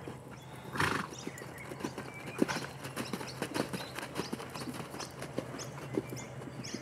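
Hoofbeats of a ridden horse cantering on a sand arena surface: a continuous run of soft, uneven thuds, with a brief rush of noise about a second in.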